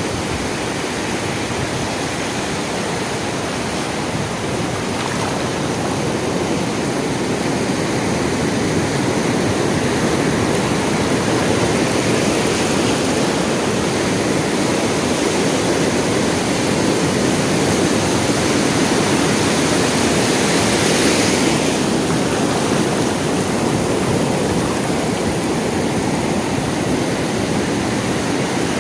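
Sea waves washing in: a continuous rushing surf that swells slowly, peaks with a brighter hiss about two-thirds of the way through, then eases back.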